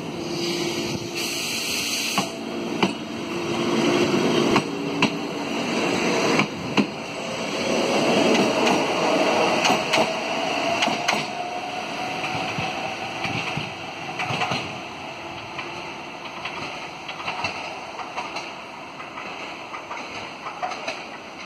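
Fukui Railway 880-series tram pulling away: its wheels knock sharply over rail joints several times in the first few seconds, then a rising motor whine as it gathers speed, fading as it draws away.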